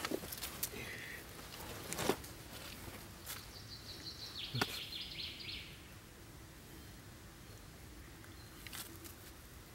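A dog snuffling and shifting about on dry leaves and soil, with light scuffs and a few sharp clicks, the loudest about two seconds in and again a little past four and a half seconds.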